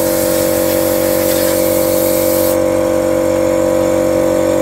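A motor-driven pump running with a steady two-tone hum, while oil sprayed from a hand-held wand hisses and then stops about two and a half seconds in.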